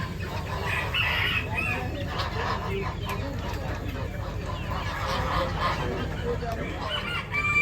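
Many chickens clucking and roosters crowing over one another, a dense overlapping chorus of poultry calls with a louder crow near the end.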